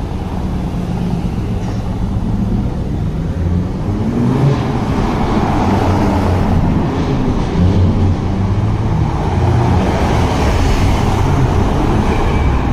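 Sports car engines crawling past one after another, led by a Mercedes-AMG GT roadster's twin-turbo V8 running close by, with other cars following. The engine pitch rises briefly about four seconds in and again near ten seconds, and the sound echoes between the buildings of a narrow street.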